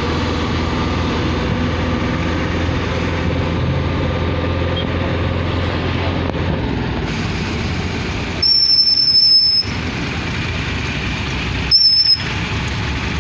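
Steady engine and traffic noise, broken by two shrill, high-pitched squeals: the first about a second long, the second shorter about three seconds later.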